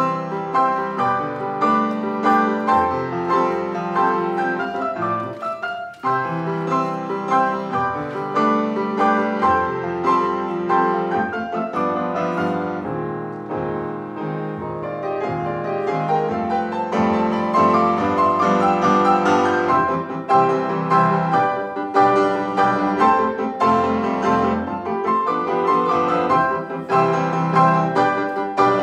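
Grand piano played four hands, a classical-style duet with dense chords and quick notes. It breaks off briefly about six seconds in, goes softer in the middle, then builds louder again.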